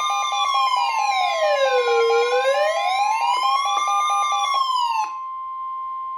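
Emergency alert tones: a slow wailing siren rising and falling about every four seconds, layered over a steady high tone and a fast pulsing beep. About five seconds in, the siren and the beeping cut off, and the steady tone continues alone until it stops near the end.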